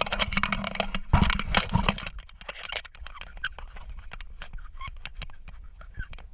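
Footsteps crunching and scuffing on dry, loose sandy dirt as someone steps down a crumbling bank, an irregular patter of short crunches. The first two seconds are the loudest part: a dense buffeting rustle.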